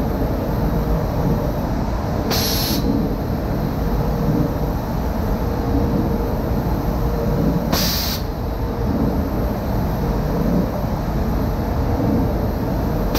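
Powder coating booth with a Wagner powder spray gun in use: a steady rush of air from the gun and the booth's extraction. Two short, sharp hisses of compressed air come about five seconds apart, about two seconds in and again about eight seconds in.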